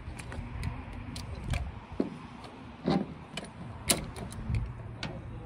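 Caulking gun clicking and knocking as it is squeezed to run a bead of sealant around the base of a chimney collar on a steel boat roof, with a string of sharp clicks, the loudest about four seconds in, over a low background rumble.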